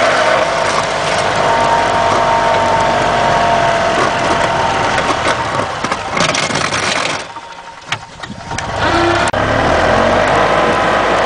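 A 1992 gas E-Z-GO golf cart's engine running under load while the cart pushes snow with its front plow. The sound drops away sharply for about a second, a little past the middle, then comes back at the same level.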